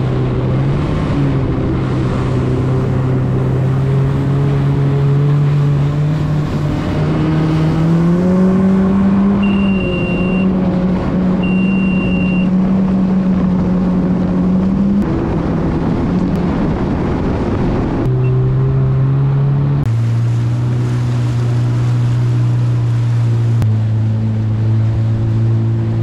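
Jet ski engine running at speed with water rushing past the hull; the engine note climbs about 8 seconds in, falls back about halfway through, and shifts again twice near the end. Two short high beeps sound in the middle.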